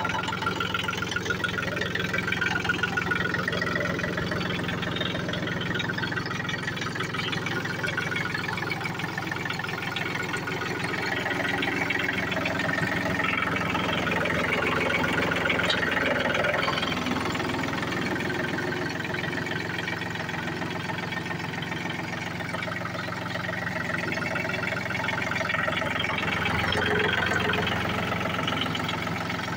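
John Deere 3036 EN compact tractor's three-cylinder diesel engine running steadily at idle.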